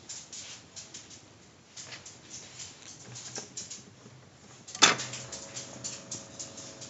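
PopSound électrophone (portable record player) being handled, with scattered small clicks and rustles. About five seconds in there is one sharp loud click, and a steady low electrical hum with a few fixed tones sets in: the player has been switched on.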